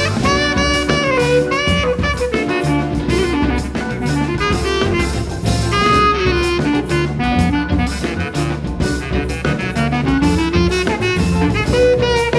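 Jazz band music: horn melody over a walking bass line and a drum kit keeping a swing beat.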